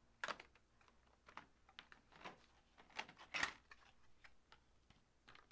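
Light, irregular clicks and taps of a model locomotive's packaging being handled during an unboxing, about a dozen in all, the loudest about three and a half seconds in.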